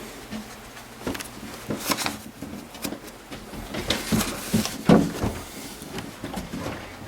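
Irregular wooden knocks, clunks and scraping, as boards or a panel are handled and moved. The loudest knock comes about five seconds in.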